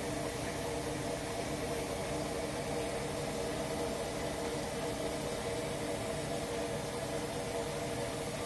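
Hoover washing machine in its final spin at 500 rpm: the motor and drum run at a steady speed, giving a constant hum made of several steady tones over a rushing noise.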